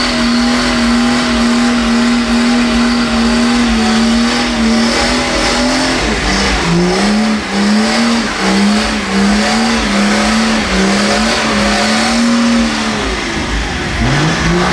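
Car engine held at high revs during a burnout, with tyre noise. The note holds steady for about six seconds, then drops and wavers up and down as the throttle is worked, and near the end falls off before climbing again.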